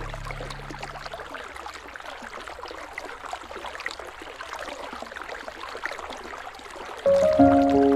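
Gentle river water flowing and rippling, with small trickling ticks. Low held music notes fade out in the first second, and music with sustained notes comes in loudly about seven seconds in.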